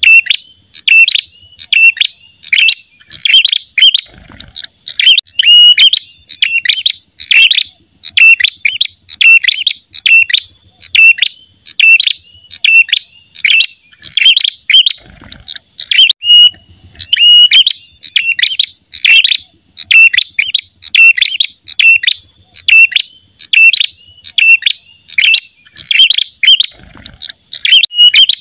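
Ashy tailorbird (prenjak kepala merah) giving its aggressive 'tarung' fighting call: an unbroken, loud string of sharp, high notes, several a second.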